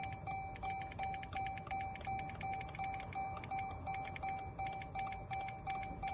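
Steady electronic beeping, one tone repeated evenly at nearly three beeps a second.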